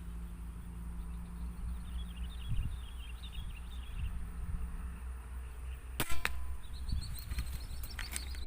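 A single sharp shot-like snap about six seconds in, briefly ringing, over steady wind rumble; a short run of high chirps sounds a few seconds before it.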